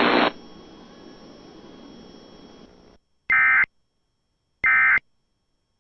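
A noisy weather-radio broadcast cuts off abruptly, leaving faint hiss, then two identical short, shrill electronic data bursts about a second apart: EAS digital code bursts, short enough to be the end-of-message code.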